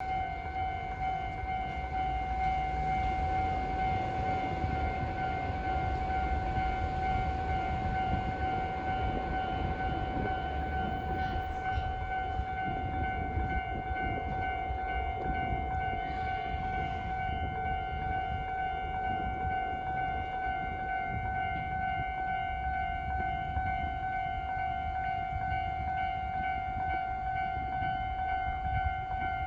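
Japanese level-crossing warning bell ringing steadily with a repeated electronic ding, over the low rumble of a passing train.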